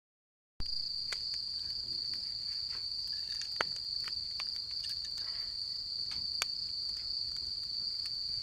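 After a brief silence, a steady high-pitched chorus of crickets sets in, with a few faint clicks and knocks scattered through it.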